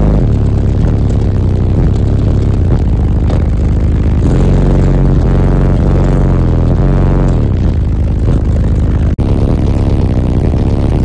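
Loud bass music played through a multi-subwoofer car audio system, heard from inside the cab, with deep notes that slide up and down in pitch. The sound breaks off for an instant about nine seconds in.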